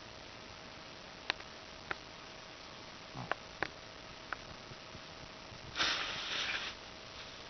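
Sleeping shih-tzu snuffling through her nose: a few small sharp clicks, then a loud, noisy sniffing breath about six seconds in.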